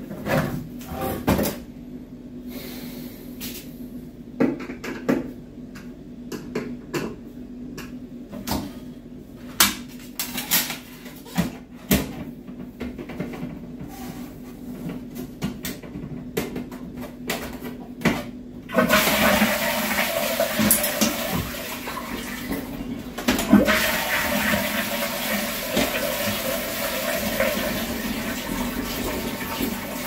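Scattered plastic clicks and knocks as a flush plate is pressed onto a Geberit concealed cistern frame. About two-thirds of the way in the cistern is flushed: water rushes suddenly into the wall-hung pan and keeps running.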